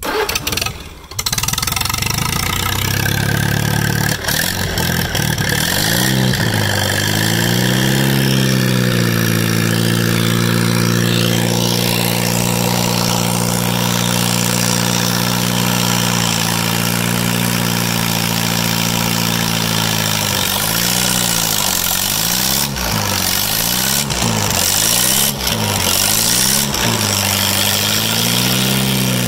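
Massey Harris Pony tractor's small four-cylinder gasoline engine starting and settling into a steady run, its speed rising a few seconds in and then holding. In the last several seconds the engine note rises and falls again and again as the tractor takes up the tow on a pickup truck.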